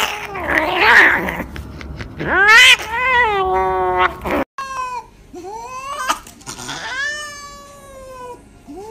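Cats yowling in protest while restrained in cones for a vet injection. First, loud, wavering yowls with long falling cries. After a sudden cut about four and a half seconds in, a second cat gives quieter, long drawn-out moaning meows that rise and fall.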